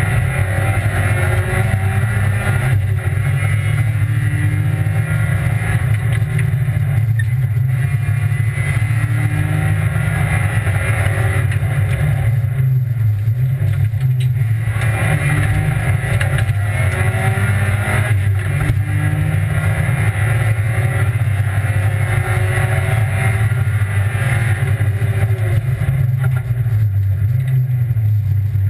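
Rally car engine heard from inside the cabin, run hard along a stage: it rises in pitch through the gears, with short dips at each gear change and a longer lift off the throttle about twelve seconds in.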